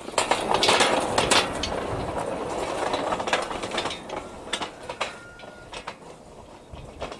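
Homemade steel wheels with straight, untapered treads rolling along a steel flat-bar track after a shove: a loud rumbling clatter with scattered clicks, strongest about half a second in and fading as the wagon rolls away.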